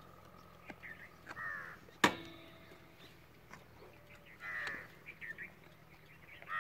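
Crows cawing: several short, harsh calls a second or more apart. One sharp knock about two seconds in is the loudest sound.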